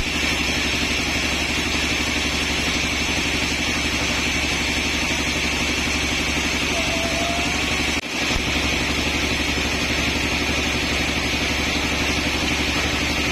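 Sawmill machinery running steadily: an engine-like drone with a fast regular pulse and a steady high whine. It breaks off for an instant about eight seconds in and carries on unchanged.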